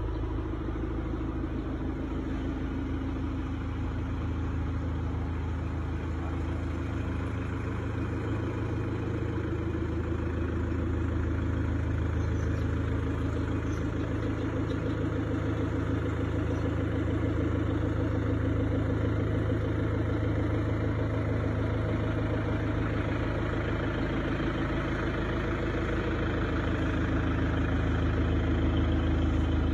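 Steady low mechanical hum, like a running motor or compressor, slowly growing a little louder.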